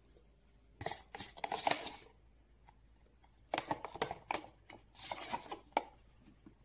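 A spoon scraping quark out of a plastic tub into a stainless-steel mixing bowl, in three short bouts of scraping and clinking.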